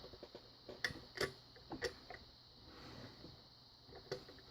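Faint, separate metallic clicks of a lock pick and tension tool working in a padlock's keyway, about four ticks spread over a few seconds.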